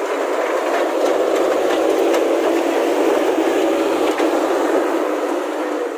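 JCB 3DX backhoe loader pushing broken asphalt with its front loader bucket: the steel bucket scrapes along the road while chunks of rubble crunch and clatter, over the diesel engine running. The clatter is loud and steady, full of sharp cracks.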